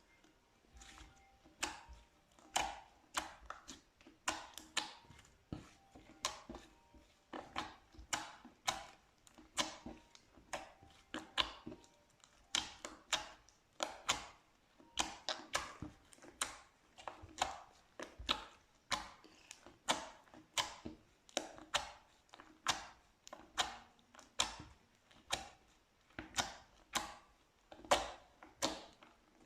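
Slime being pressed and squeezed by hand, giving sharp crackling pops in a steady rhythm of about one or two a second.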